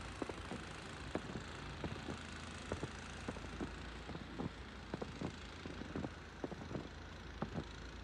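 Footsteps crunching through fresh, deep snow, several soft crunches a second, under a steady hiss of storm wind.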